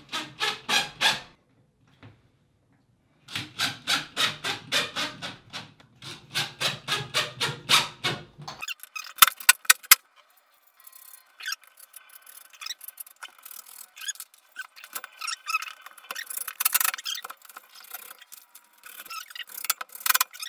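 Drill driving number 8 flanged screws into plastic toggle wall anchors in two runs of pulsing motor sound. These are followed by a few sharp loud clicks, then scattered clicks and rubbing as the metal towel rack is fitted onto its wall mounts.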